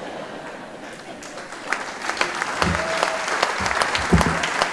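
Audience applause, the clapping starting about a second in and swelling after two seconds, with a few dull low thumps near the end.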